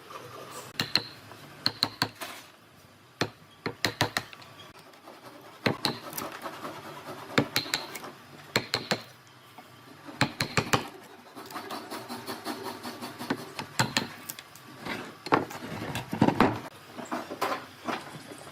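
Pieces of wood being handled and knocked together in a workshop: clusters of sharp taps and knocks come every second or two, with some scraping and rubbing between them.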